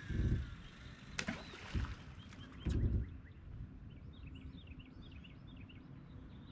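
Low thumps and knocks on the aluminum boat hull as a fishing rod is cast and handled, three heavier ones at the start, about two seconds in and about three seconds in, with a couple of sharp clicks. A small bird chirps rapidly in the background through the second half.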